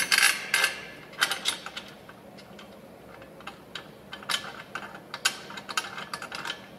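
A hand ratchet clicking in short bursts of rapid clicks as a Stover lock nut is run down onto a suspension bracket bolt, after a few louder metal clacks at the start.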